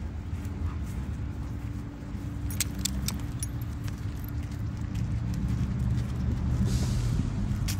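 Light metal jingling from the walking dogs' collar and leash hardware, a quick run of clinks between about two and a half and three and a half seconds in, over a steady low rumble of road traffic.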